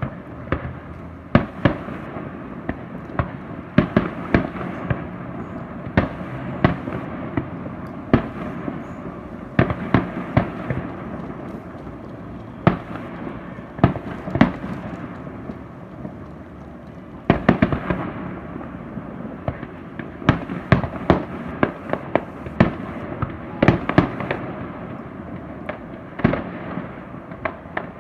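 Fireworks display: a long run of sharp, irregular bangs, sometimes several in quick succession, over a continuous rumble of further bursts.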